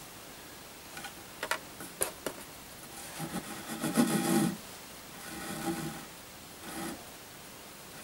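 A few light clicks, then braided synthetic rope rubbing and sliding over a round wooden rail in three stretches as it is wrapped into a clove hitch; the longest and loudest comes about four seconds in.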